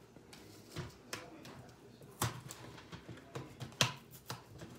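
A cardboard box of boxed macaroni and cheese being handled and opened one-handed on a countertop: a string of irregular faint clicks and knocks, the sharpest about two and four seconds in.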